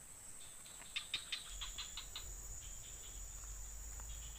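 Insects keep up a steady high-pitched buzz. A quick run of short, sharp clicks comes about a second in, and a faint low rumble starts soon after.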